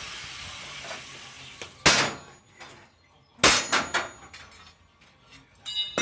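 A power tool spinning down, its whine falling and fading, then two sharp metallic knocks about a second and a half apart and a ringing clank of steel near the end.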